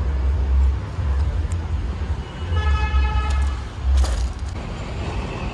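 Road traffic rumbling, with a vehicle horn sounding one steady note for about a second midway and a sharp knock about four seconds in.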